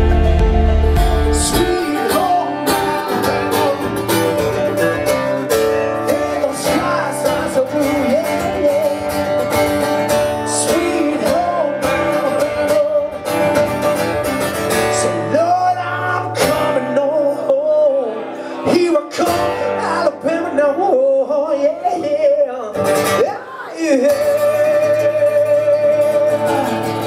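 A man singing a song to acoustic guitar accompaniment.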